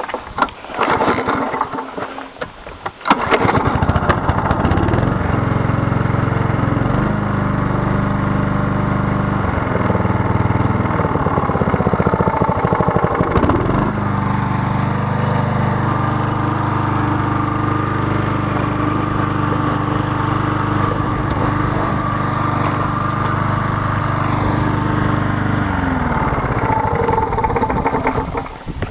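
Klippo self-propelled lawn mower engine starting: a few ragged strokes, then it catches about three seconds in and runs, its speed shifting up and down a few times before it slows and stops near the end. It runs a little unevenly, which the owner puts down to the engine not yet being warm and the freshly cleaned carburettor not yet being adjusted.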